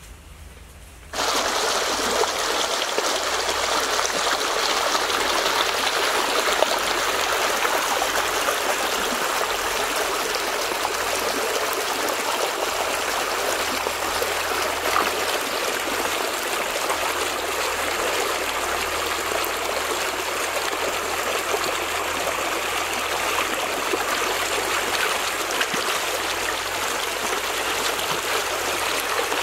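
Shallow rocky stream running steadily, starting abruptly about a second in, with hands splashing in the water as dug tubers are washed.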